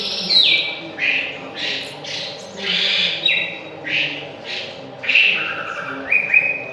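A wambi songbird singing loud, short phrases of clear whistled notes, about one a second, several holding a note and then dropping a step in pitch. This is a lure song meant to set another bird singing in long rolls.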